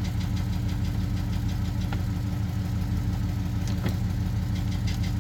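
GM pickup engine idling steadily with a rapid, even light ticking over it, an unidentified noise from an engine recently freed after seizing from oil starvation.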